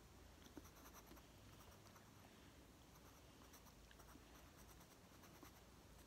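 Pencil scratching faintly on sketch paper in short strokes, with a few small ticks.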